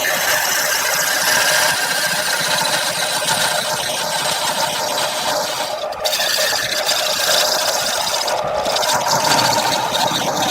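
Wood lathe running while a turning tool cuts into the spinning wood: a loud, steady scraping hiss with a faint whine under it, which breaks off briefly about six seconds in.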